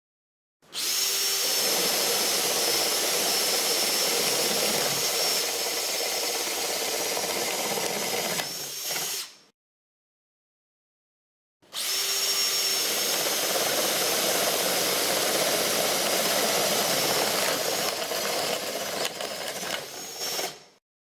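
Power drill boring holes with an Irwin 4X flat (spade) wood bit, in two separate runs of steady drilling with a thin high motor whine. Each run lasts about nine seconds and is cut off abruptly.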